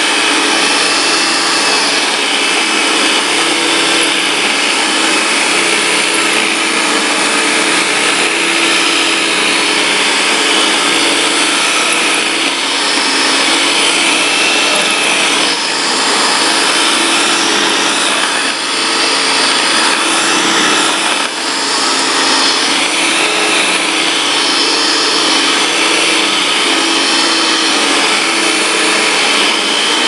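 Hoover Dial-A-Matic upright vacuum cleaner running steadily, with its motor hum and rushing airflow, while it is pushed back and forth over carpet.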